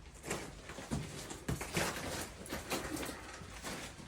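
Scattered light knocks and clicks, a few each second, over a low hum.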